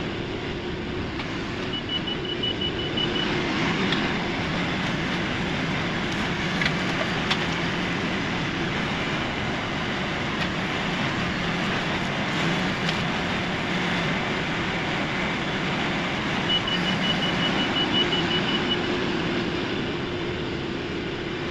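LS MT573 tractor's diesel engine running steadily under load while it works brush with its loader grapple, with a few sharp snaps. Twice a rapid series of short high beeps sounds, the reverse alarm as the tractor backs out.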